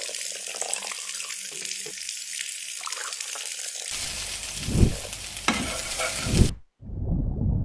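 Food sizzling in a hot pan as liquid is poured over it, a steady hiss. About halfway through come knocks of a utensil stirring against the pan, and the sound cuts off abruptly near the end.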